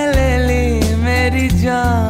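Background music: a song with a held, gliding lead melody over a steady repeating bass line.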